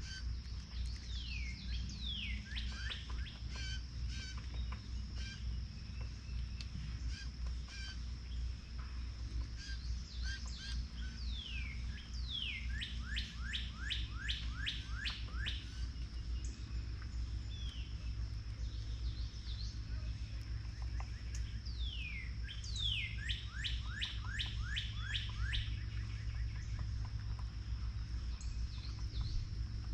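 Songbirds around a feeder calling and singing: scattered short chirps, and three times a quick run of repeated falling whistles. A steady high-pitched whine and a low rumble run underneath.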